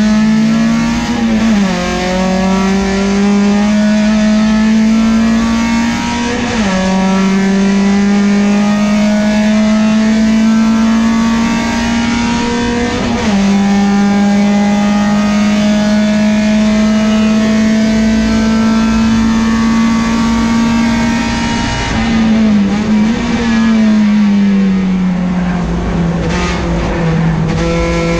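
Peugeot 405 STi touring race car's engine heard from inside the cockpit, pulling hard through the gears. The pitch drops sharply at upshifts about one and a half, seven and thirteen seconds in. Around twenty-two seconds in the throttle lifts and blips, and the pitch falls away through downshifts.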